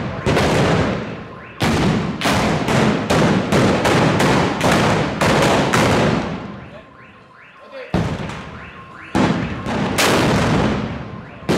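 Black-powder arquebuses firing blank charges in a rapid volley, about three shots a second, each echoing off the street. The volley stops a little after halfway, and a few more single shots follow near the end.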